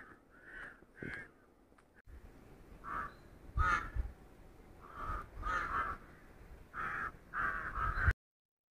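Crows cawing repeatedly, a series of short harsh calls with a low rumble beneath them from about two seconds in. The sound cuts off abruptly near the end.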